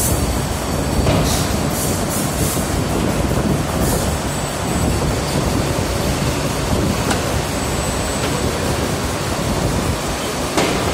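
Paper tube making machine running: a loud, steady mechanical rumble and rattle. A few short hisses come in the first couple of seconds and once more near the end.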